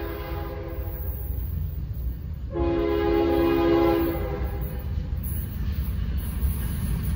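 Norfolk Southern freight locomotive's air horn sounding one blast of several tones at once, about a second and a half long, a few seconds in, over the low rumble of the approaching train. A second blast starts at the very end.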